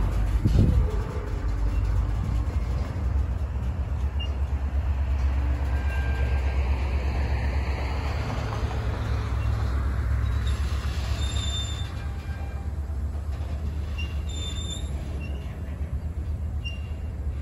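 Norfolk Southern freight train's covered hopper cars rolling past at low speed: a steady low rumble of steel wheels on rail with a rapid clatter, and a few brief high-pitched wheel squeals. A thump about half a second in.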